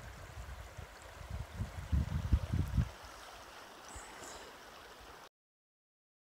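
Paria River flowing as a steady rushing hiss, with a run of low rumbling thumps for about a second and a half starting about a second and a half in. The sound cuts off suddenly about five seconds in.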